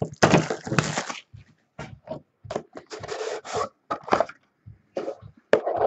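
A cardboard trading-card box being opened by hand: irregular rustling and scraping of cardboard and pack wrapper in short bursts.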